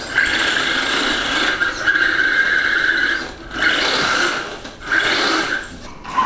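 Axial SCX10 RC rock crawler's electric motor and gearbox whining as it drives, dropping out briefly twice when the throttle is let off and stopping near the end.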